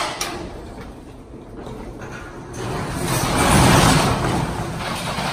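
A sharp click at the start, then a corrugated steel roll-up storage unit door rattles as it is rolled up, loudest about three to four seconds in.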